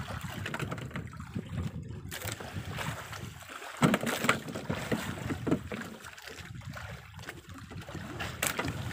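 Wind buffeting the microphone over open sea water lapping at a small boat, with a few knocks and rustles from handling fishing line; the loudest knock comes about four seconds in.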